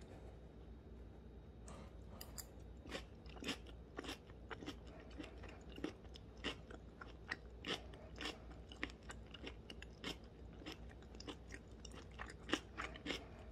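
A person chewing a mouthful of stir-fried sausage and vegetables, with wet, crisp crunches about two to three times a second that start about two seconds in.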